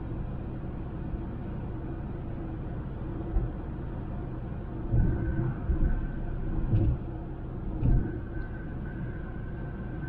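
Honda Civic driving, with a steady rumble of road and engine noise and a few heavier low thumps in the middle. A faint steady high whine comes in about halfway.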